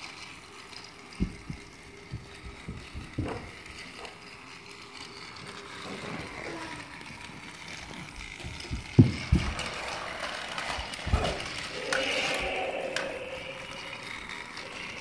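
Battery-powered Thomas the Tank Engine toy train whirring as it runs along plastic track, with a few clicks and knocks of the engine on the track pieces and ramp, the loudest about nine seconds in.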